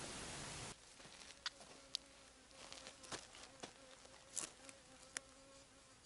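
An insect buzzing steadily close to the microphone, with scattered light clicks and taps from a rusty metal lock being handled. Wind hiss on the microphone stops abruptly under a second in.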